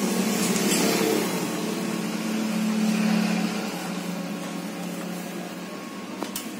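Epson L1300 inkjet printer running a print job: a steady mechanical hum that eases off after about three and a half seconds.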